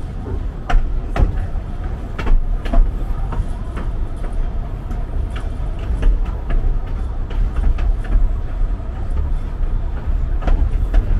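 Narrow-gauge forest railway train running: a steady low rumble with scattered sharp clanks of the wheels on the track.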